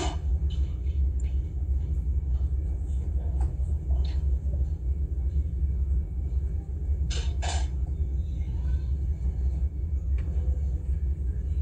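Steady low rumble, with a few faint short rustles and clicks and two brief soft noises about seven seconds in.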